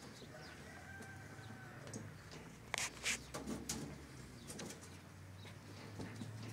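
Dry hay rustling and crackling as it is handled at the rabbits' feeding pile, loudest in a few sharp rustles about three seconds in, then scattered small crackles. Birds call faintly in the background.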